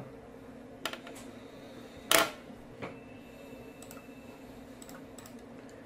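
A few short computer-mouse clicks, the loudest about two seconds in, over a faint steady electrical hum.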